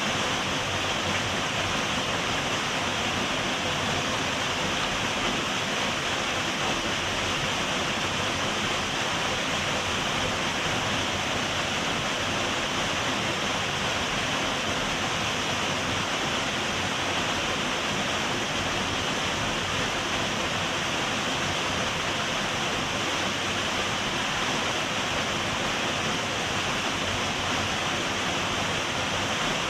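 A small waterfall rushing steadily, an unbroken roar of falling water.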